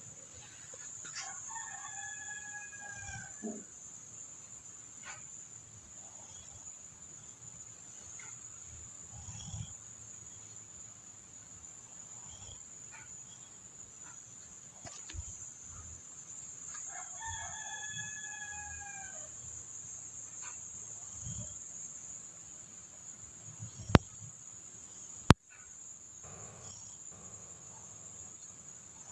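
A rooster crowing twice, each crow about two seconds long and some fifteen seconds apart, over a steady high-pitched hiss. Two sharp clicks about a second apart near the end are the loudest sounds.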